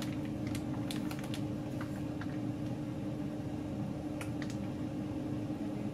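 Scattered light clicks and taps of kitchen utensils and dishes as food is served, over a steady low hum.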